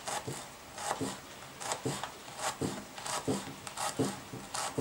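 Kitchen knife mincing garlic cloves on a plastic cutting board: a run of short, unevenly spaced taps of the blade against the board, about three a second.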